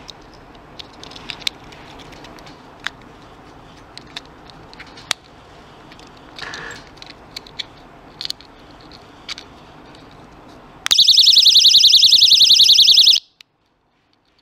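Small plastic clicks and handling noises from a keychain personal safety alarm. About eleven seconds in, the alarm goes off with a loud, shrill, rapidly warbling siren that lasts a couple of seconds and then cuts off suddenly.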